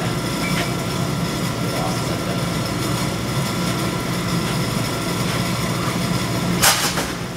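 A steady low hum runs throughout. Near the end there is one short, sharp thud-and-rush: a gymnast taking off into a back handspring over an octagon mat and landing on the gym mats.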